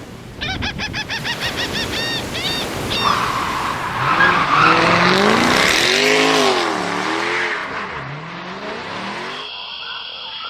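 Car sound effects. A fast run of high chirps slows over the first three seconds. Then comes a stretch of engine revving, swooping up and down, with tyre squeal. It cuts off abruptly near the end.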